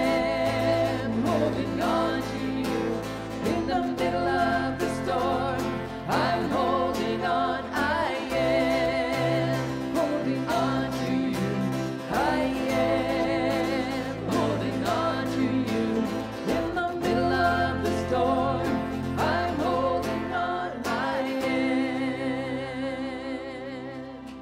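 Live church worship band playing a gospel song: singing over acoustic guitar, electric bass and keyboard, the music fading out over the last couple of seconds as the song ends.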